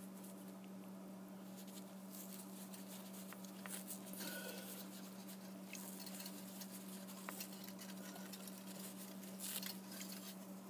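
Faint rustling and scratching of plastic-gloved fingers handling a sheet of cellulose, a little louder twice, over a steady low hum.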